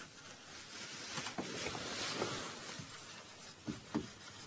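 Faint scratching of a pen drawing, with a few light taps.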